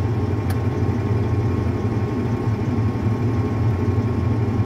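Caterpillar D8 dozer's diesel engine idling steadily at about 700 rpm, heard from inside the cab as an even low hum.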